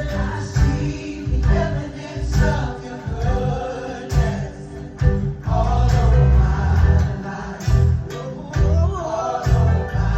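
Gospel worship music: a choir and a lead singer over a band with heavy bass and drums keeping a steady beat.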